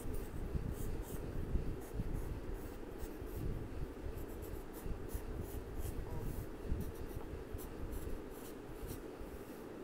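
Colored pencil scratching on paper in many short repeated strokes as a flower petal is outlined and shaded in.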